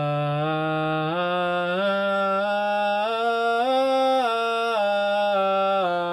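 A solo voice sings a natural minor scale without words, in one smooth unbroken line. It steps up note by note to the top note about four seconds in, then steps back down.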